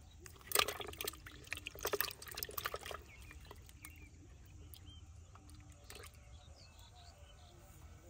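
Climbing perch splashing and thrashing in a plastic bucket of water with other caught fish: a quick run of wet splashes from about half a second in, dying away after about three seconds.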